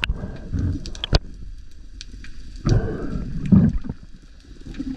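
Underwater water noise around the camera: gurgling and sloshing in uneven bursts, with a sharp click about a second in.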